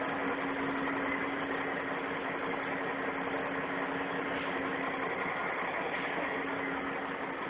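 Heavy dump truck's diesel engine running steadily with its dump bed raised, a constant low hum under the engine noise.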